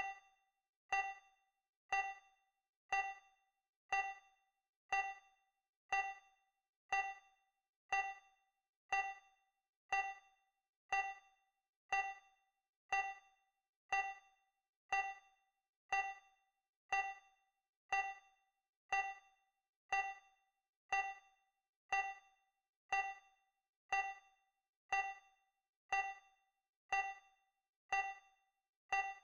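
Countdown timer's electronic tick sound effect: a short, bell-like ding once every second, each fading quickly, about thirty in a row at an even pace.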